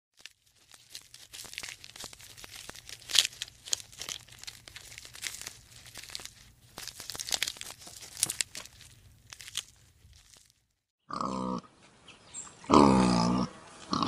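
A giraffe stripping and chewing leaves: crisp crunching and tearing for about ten seconds. After a short break, pigs grunt, two pitched grunts near the end, the second longer and the loudest.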